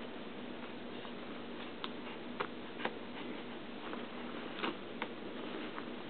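Quiet room tone with a steady low hum, broken by about five faint, sharp taps scattered through the middle of it.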